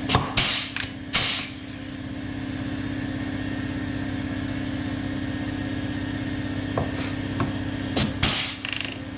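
Pneumatic blind-rivet gun setting aluminium rivets: short sharp hissing bursts as it pulls each rivet tight, twice near the start and again near the end, over a steady hum.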